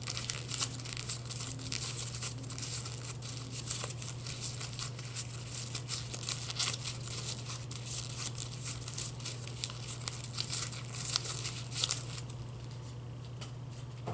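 Plastic wrapping being crinkled and handled close to the microphone in a dense run of crackles. The crinkling stops near the end, leaving a steady low hum.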